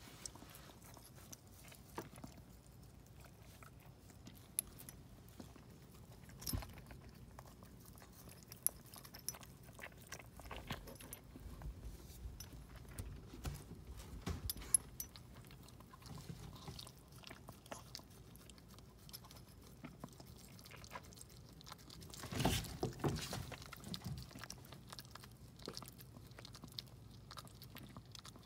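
Faint wet licking and chewing sounds of a Maltese mother dog cleaning her newborn puppy, with scattered small clicks and a louder stretch of licking about three-quarters of the way through.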